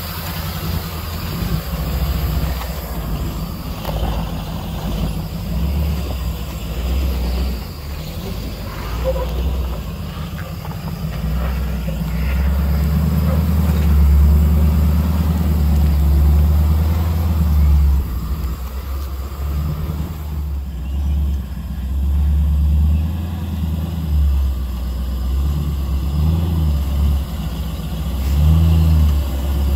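Off-road vehicle engine running at crawling speed over slickrock, its revs rising and falling as it works over the rock.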